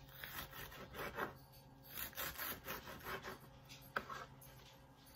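Purple cabbage being sliced very thin, a run of rasping cutting strokes in short bursts, with a sharp knock about four seconds in.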